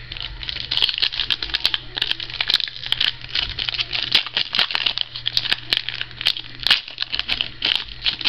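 Crinkling and crackling of a trading-card pack wrapper being handled and opened, a dense run of irregular crackles.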